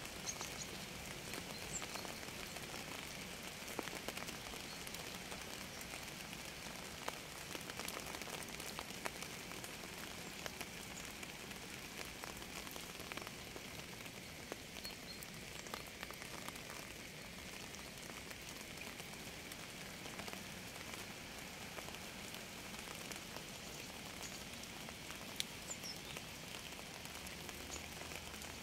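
Steady rain falling on a surface, a constant hiss dense with individual drop taps. A few faint high chirps come through near the start and near the end.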